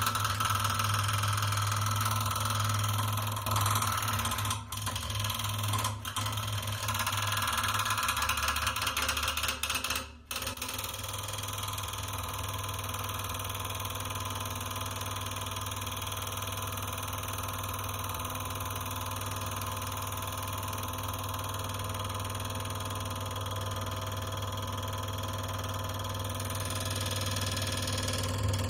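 Acoustic guitar lying flat, its strings mechanically agitated by a small handheld device, giving a continuous buzzing drone with a strong low hum and many sustained ringing overtones. It dips briefly about ten seconds in, then carries on steadier and slightly duller.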